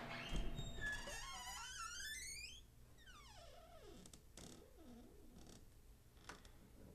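Eerie warbling sound effect: a low thud, then a wavering tone that climbs in pitch for about two seconds and cuts off, followed by fainter falling glides.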